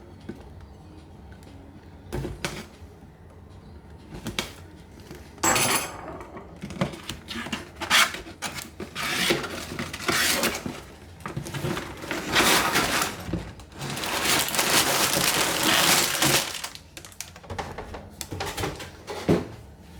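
Loose LEGO plastic pieces clattering and rattling as they are handled, in irregular bursts of clicks, with a longer continuous rattle about three quarters of the way through.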